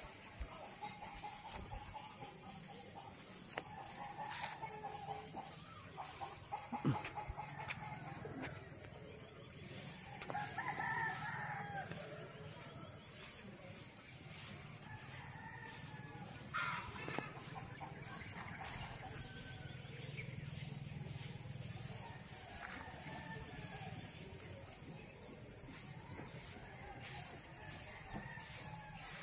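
Roosters crowing now and then, with chickens clucking; the longest, loudest crow comes about ten seconds in.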